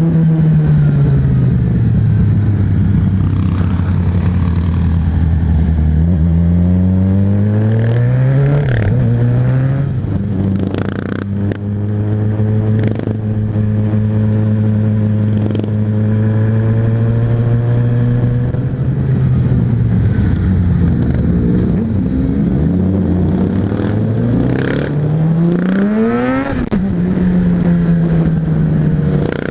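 Motorcycle engine heard from the rider's seat, running at steady cruising revs; the revs climb and then drop with a gear change about a quarter of the way in, and climb and drop again near the end.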